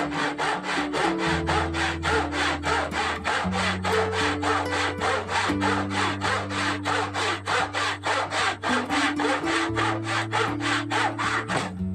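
Hand saw cutting through a wooden board with fast, even back-and-forth strokes, about four to five a second. The strokes stop near the end as the cut is finished.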